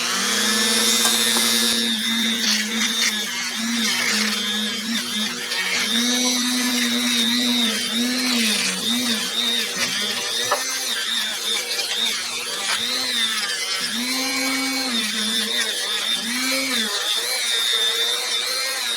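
Dremel rotary tool switched on and running at high speed on rusty pliers. Its pitch sags and recovers again and again as it is pressed to the work and eased off.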